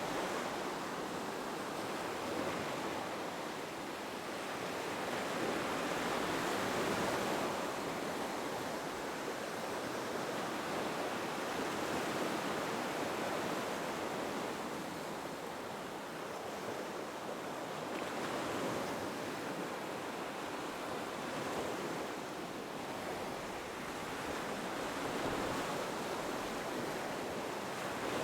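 Ocean surf breaking on a beach, the noise of the waves swelling and easing every few seconds.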